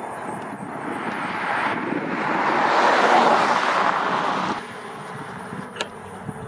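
Rushing noise of a passing vehicle that swells for about three seconds, then drops off suddenly about four and a half seconds in.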